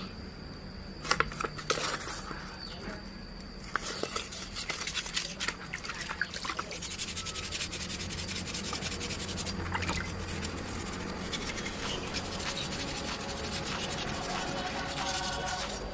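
Motorbike brake caliper being wet-sanded by hand with P400 waterproof sandpaper in a basin of water: a continuous scratchy rubbing of abrasive paper on metal, with a few handling knocks about a second in. The caliper is being scuffed smooth to key the surface for primer and paint.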